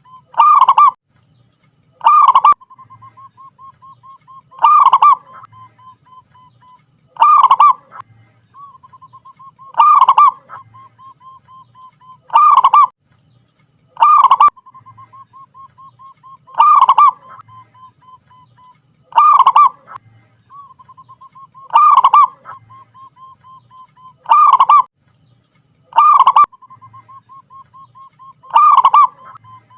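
Zebra dove (perkutut) singing: loud cooing phrases repeated every two to three seconds, with soft, rapid ticking notes at the same pitch between them.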